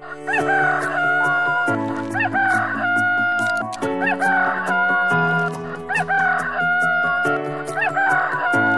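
Rooster crowing, cock-a-doodle-doo, about four times in a row, one crow every two seconds or so.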